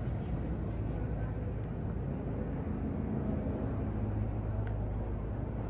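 A motor vehicle engine running with a steady low hum over general city street noise.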